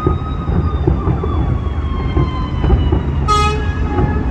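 Emergency vehicle siren wailing with its pitch slowly falling, then a short loud horn blast about three seconds in, over a steady low rumble.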